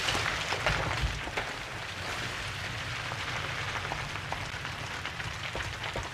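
Logo-reveal sound effect of crumbling stone: a steady trickle and patter of falling grit and small debris over a low rumble, easing off at the very end.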